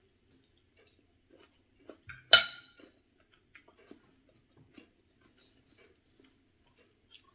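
Chewing with the mouth closed and small scattered clicks of a metal fork and spoon on a ceramic plate, with one sharp, ringing clink a little over two seconds in.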